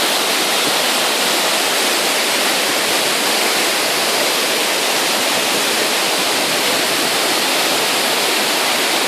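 Waterfall: water falling and rushing in a loud, steady roar.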